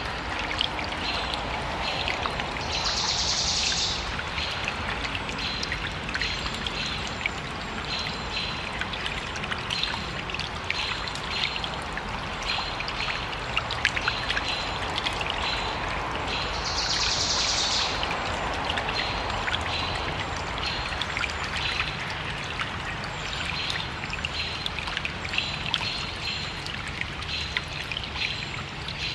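Small stream trickling steadily, with birds chirping in short repeated notes. A brief high trill comes twice, about three seconds in and again about seventeen seconds in.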